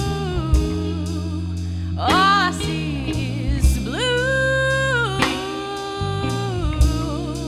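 A woman singing a slow song in long held notes with vibrato and a few upward slides, over her own electric bass and a guitar, with a few drum hits.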